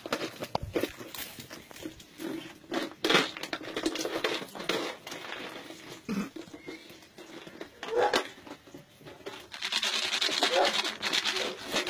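Young puppies playing: short whimpers and yips over scuffling, scratching and clicking noises.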